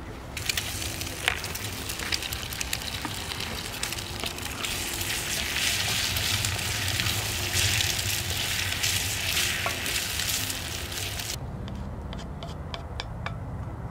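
Kabanos sausage pieces sizzling in a cast-iron frying pan, with the scrape of stirring. The sizzle starts suddenly about half a second in, is loudest in the middle, and cuts off abruptly near the end.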